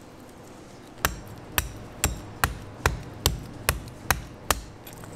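Nine sharp chops, about two a second, of a knife striking through the rib section of a bluefin tuna onto a wooden cutting board.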